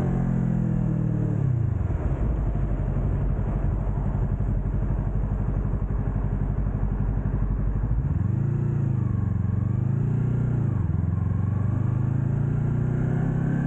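2020 Yamaha YZF-R3's parallel-twin engine slowing from speed to a steady idle, idling for about six seconds, then revving up again, the pitch rising, dipping and climbing as the bike moves off.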